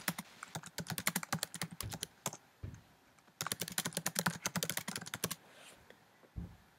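Typing on a computer keyboard: two runs of quick keystrokes with a pause of about a second between them.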